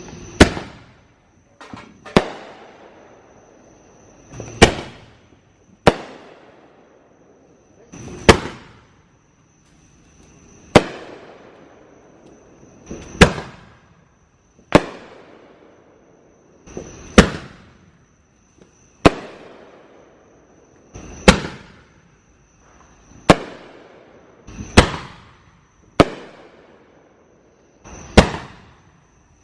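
Fireworks going off in a long series of sharp bangs, about one every two seconds, each trailing off into a short fading rumble.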